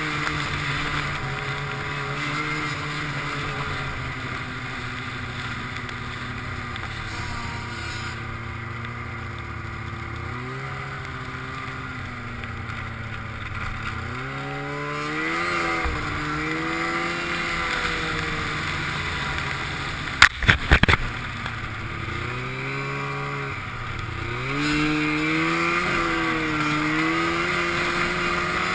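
Snowmobile engine running under way, its pitch dipping and climbing again several times as the throttle is eased off and opened up, with wind rushing past. About twenty seconds in, a quick cluster of sharp knocks.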